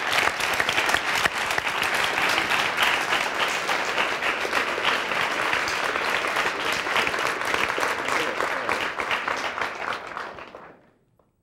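Studio audience of children applauding, many hands clapping steadily, then dying away to silence near the end.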